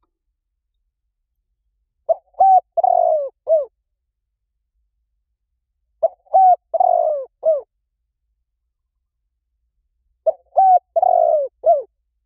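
Spotted dove cooing: three identical phrases of four or so notes each, about four seconds apart, with dead silence between them.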